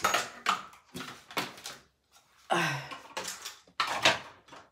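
A string of short knocks, clicks and rustles, with a brief low vocal sound about two and a half seconds in.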